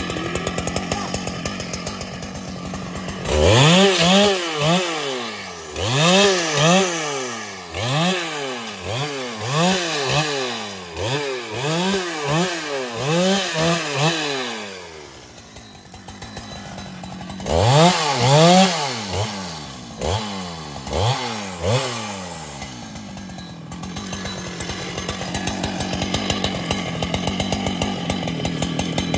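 Large two-stroke chainsaw idling, then revved in repeated short throttle bursts, about one a second, as it cuts through brush and small branches. The revving dips quieter around the middle, picks up again for a few seconds, then the saw settles back to a steady idle.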